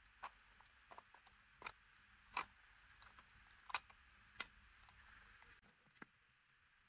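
Faint, scattered clicks and light knocks of 3D-printed plastic parts being handled and fitted together: a small motor with its gear pushed into a plastic engine block. About seven separate clicks, a couple of them a little louder, with a soft rustle of handling in between.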